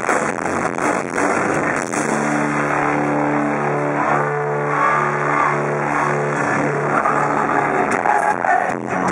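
Rock band playing live with no singing: drum hits over guitars, then from about two seconds in a held chord rings on for around five seconds before the drums come back in near the end.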